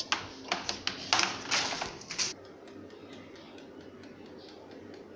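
Sharp plastic clicks and rattles of an air fryer's power cord and plug being handled and pulled, for about two seconds, then faint regular ticking.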